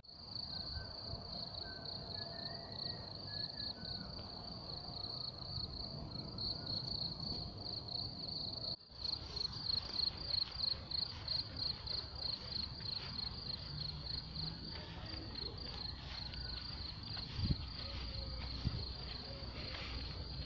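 Crickets chirping in a steady high trill. About 9 s in, after a cut, the chirping breaks into distinct pulses about twice a second, with faint low background rumble underneath.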